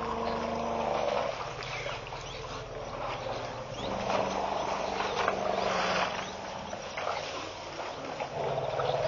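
A herd of African elephants calling at a waterhole: low rumbles and several longer held calls come and go, over a background of rustling and crackling.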